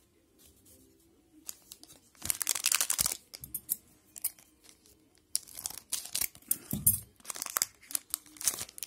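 Foil trading-card pack wrapper crinkling and tearing as it is handled and opened. There is a burst of crackling about two seconds in, then a longer run of crinkles and rips from about five seconds on.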